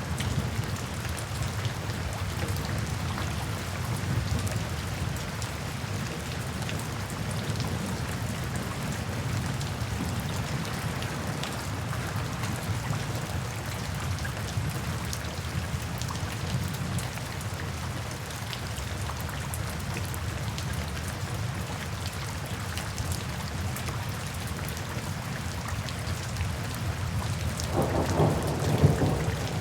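Steady rainfall with a low, continuous rumble of thunder beneath it. Near the end a louder roll of thunder builds.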